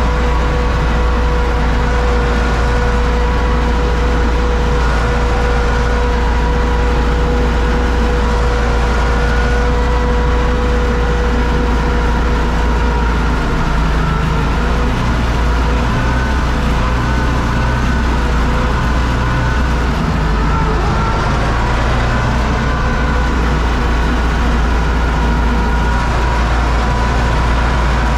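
UTB Universal U650 tractor's four-cylinder diesel running steadily under load inside its cab while it pulls a Zmaj Zemun 223 corn picker through standing corn, a low drone with a steady whine over it.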